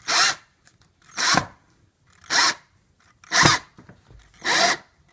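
Cordless drill driving a long 2.5-inch wood screw through a door strike plate into the frame. It runs in five short bursts about a second apart, with quiet between them.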